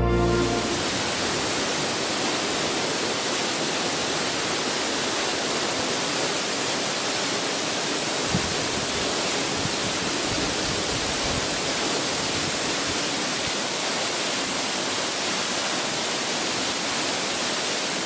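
Waterfall pouring hard, swollen with rainwater, heard up close as a steady, even rush of falling water and spray.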